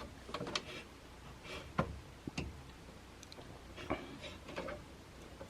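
Faint, scattered light clicks and taps of an expansion card's metal bracket being shifted and pulled into line against the PC case slot.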